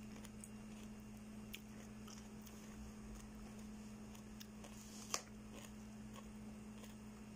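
Low steady hum of a quiet room with a few faint sharp clicks, the sharpest about five seconds in: a metal fork tapping a dish while a child eats cucumber.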